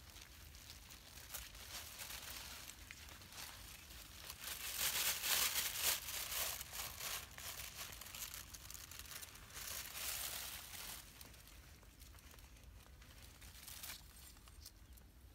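Thin plastic bag crinkling, with leaves rustling and tearing as they are plucked from shrubs by hand and pushed into the bag. It comes in irregular bursts, loudest about five to six seconds in and again around ten seconds, then dies down.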